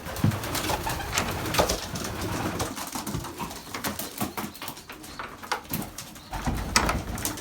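Racing pigeons cooing in a loft, with many short clicks and rustling as the birds move about.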